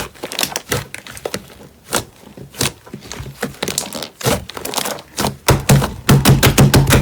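Slime being pressed and poked by hand, making irregular clicking pops, with a faster run of loud pops over the last second and a half.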